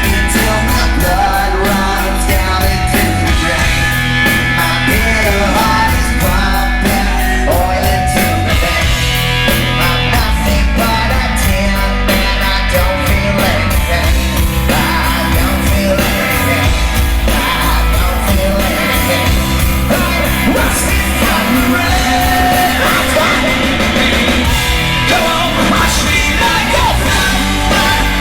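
Punk rock band playing live, loud: distorted electric guitars, bass and drums with a fast, steady cymbal beat, and a lead singer belting the vocal line.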